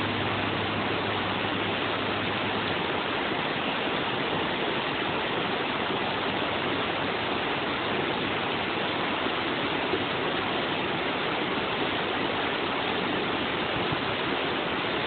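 River running high, rushing steadily through white-water rapids.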